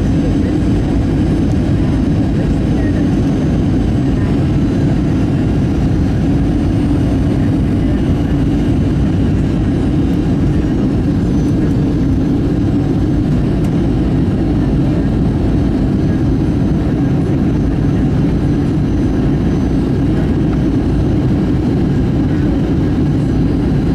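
Steady cabin noise inside a Southwest Airlines Boeing 737 descending on approach: engine hum and rushing air, loud and even throughout.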